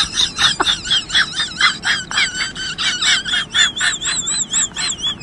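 A spiky dog toy ball giving off a rapid run of high-pitched squeaks, about four a second, each wavering in pitch.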